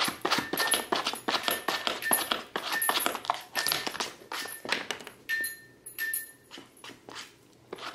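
A cat rummaging with its head inside a cardboard box: irregular rustling, scratching and knocking of card, busiest for the first five seconds and thinning out near the end.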